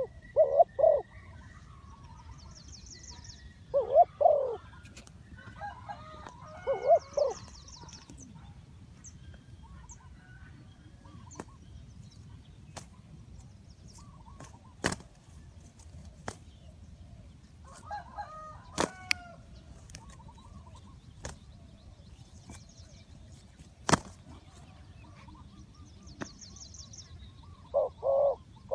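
Spotted dove cooing in short, low, repeated phrases, heard at the start, about four and seven seconds in, and again near the end. Between the phrases, other small birds chirp faintly, and a few sharp clicks sound.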